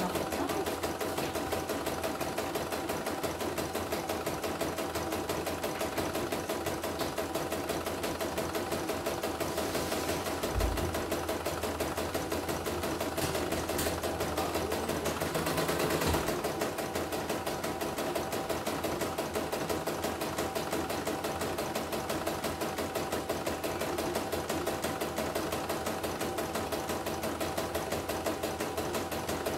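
CNY computerized embroidery machine stitching a design: rapid, even needle strokes at a steady speed as the hoop moves, test-running after its rotary hook has been refitted. A couple of brief low knocks come in the middle.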